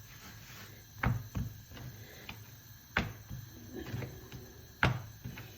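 Hands patting a ball of chapati dough flat: a few soft slaps at uneven intervals, the loudest about a second in, at three seconds and near the end.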